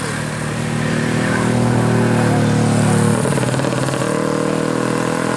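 Road traffic: a vehicle engine running loudly as vehicles pass close by on a hill road. It builds over the first few seconds and drops off sharply about three seconds in.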